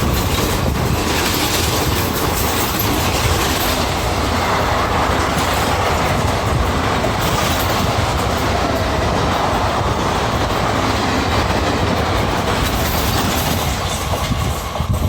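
Indian Railways ICF passenger coaches running, their bodies rattling over a steady rumble of wheels on the track.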